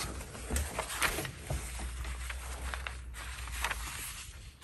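Irregular rustling and light knocks of art materials being handled on a work table, over a low steady hum.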